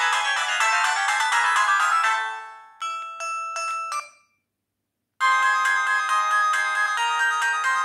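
BenQ-Siemens A38 mobile phone playing its built-in polyphonic ringtones. One tune, with a rising sweep, fades out about two and a half seconds in and a few short closing notes follow. After about a second of silence the next ringtone starts, a busy repeating melody.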